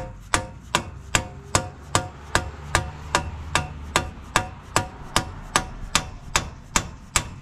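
Steady hammer blows, about two and a half a second, on a bearing installer tool, each with a short metallic ring, driving a new rear wheel bearing into the 9.25-inch axle housing of a Ram 1500.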